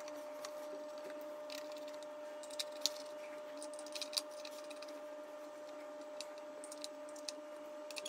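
Scattered light clicks and taps of hands and screws on a 3D printer's thin metal bottom cover, a few at a time, over a faint steady hum.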